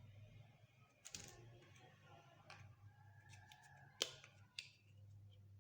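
Small plastic toy pieces being handled, giving light clicks and taps, with one sharp click about four seconds in and another just after.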